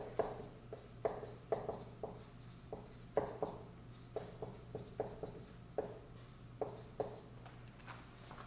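Dry-erase marker writing on a whiteboard in a series of short, separate strokes, about one or two a second, stopping shortly before the end.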